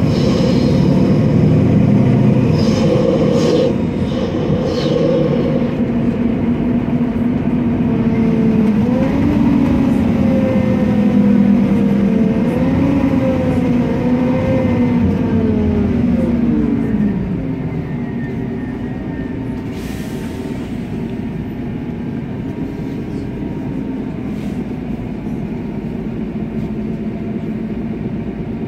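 Turbocharged MAN E2876 CNG engine of a MAN Lion's City bus, heard from inside the cabin. The engine note rises and falls several times as the bus pulls through traffic, then drops away and goes quieter about 17 seconds in. A brief hiss follows a few seconds later.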